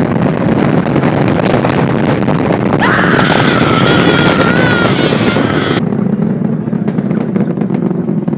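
Loud, steady roar of a rocket motor climbing after liftoff. From about three seconds in, a high wavering squeal rides over the roar for about three seconds; then the roar goes on, duller and a little quieter.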